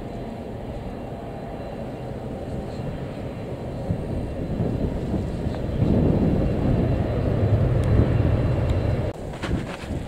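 Low rumble of a jet airliner's engines passing overhead, growing louder about six seconds in. Gusts of wind buffet the microphone near the end.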